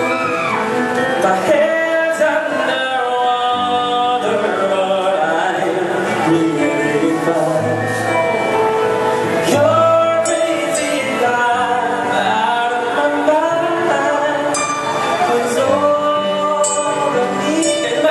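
Live band playing pop music with a lead singer: an amplified vocal over drums and keyboards.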